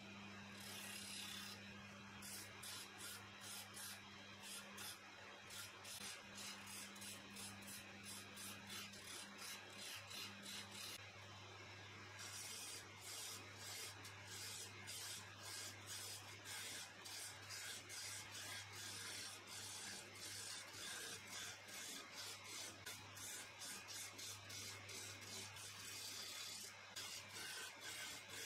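A hand file pressed against a laminated wood cylinder spinning on a lathe, rasping in quick, evenly repeated strokes over the steady hum of the lathe's motor.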